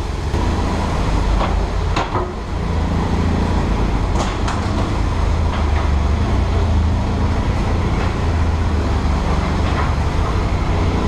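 Steady low vehicle rumble inside a Eurotunnel shuttle carriage, with a few sharp knocks about two and four and a half seconds in.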